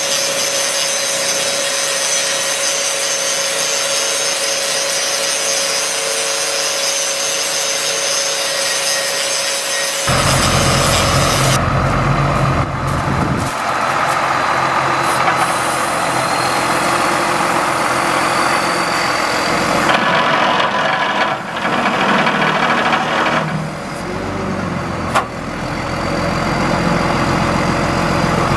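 Electric angle grinder grinding a steel bar, a steady whine over grinding hiss. About ten seconds in it gives way to the mechanics truck's engine running at idle.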